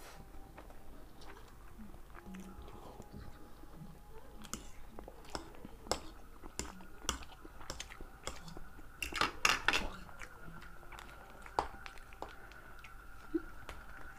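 Two people eating instant noodles with forks: close-up chewing and mouth sounds with scattered sharp clicks, including a louder cluster of clicks about nine to ten seconds in.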